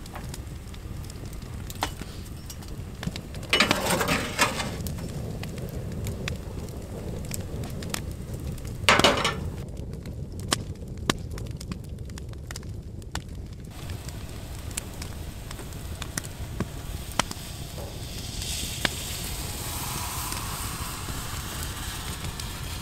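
Wood fire burning on a bed of coals, crackling with scattered sharp pops. Two louder short noisy bursts come about four and nine seconds in, and a soft hiss swells near the end.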